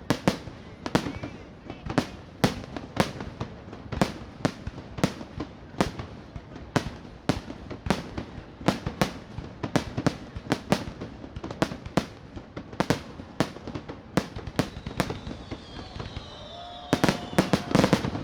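Aerial fireworks bursting in a steady run of sharp bangs, a few each second, building to a dense barrage near the end, with falling whistles just before it.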